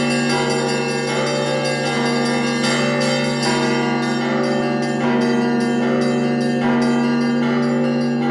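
Several church bells ringing together: smaller bells struck in quick succession over the lingering hum of larger, deeper bells.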